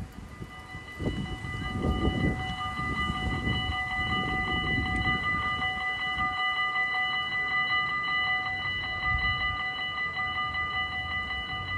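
Level-crossing warning bells of a Dutch AHOB crossing ringing steadily and rapidly, the signal that a train is approaching and the barriers are coming down. A low rumble sits under them in the first few seconds.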